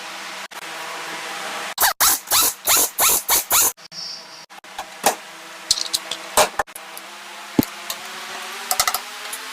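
Metal tool work on a small motorcycle engine: a quick run of about seven loud strokes, then scattered clicks and knocks, over a steady hum.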